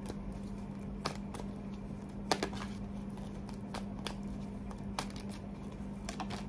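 Tarot cards being shuffled by hand, giving a series of irregular soft clicks and snaps as the cards slide and strike each other, over a steady low hum.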